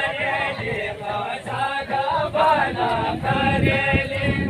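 Group of voices singing a Kumaoni jhoda-chachari folk song together, unaccompanied, in drawn-out, wavering notes.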